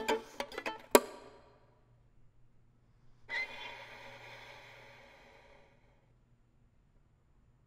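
Solo violin played with extended techniques: a few sharp plucked notes ringing out in the first second, then after a pause a soft, airy, hiss-like bow stroke that starts about three seconds in and fades away over some three seconds.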